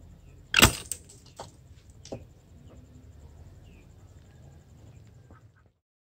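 Homemade trigger slingshot being released: one sharp snap as the trigger lets go and the metal bullet-holder flaps spring open, followed by two lighter clicks.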